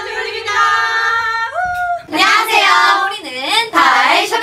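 A K-pop girl group calling out its greeting in unison, the women's voices drawn out in a sing-song chant. Partway through, the voice rises and cuts off. A second group of women then starts its own unison greeting chant.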